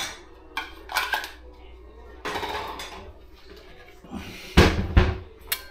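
Metal cookware and a stainless steel mixing bowl clanking as they are moved about and pulled from a low kitchen cabinet, a string of separate clatters with two loud knocks about four and a half and five seconds in.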